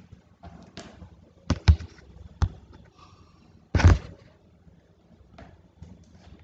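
Several sharp knocks and taps, the loudest a heavier thump just before four seconds in, over a faint low hum.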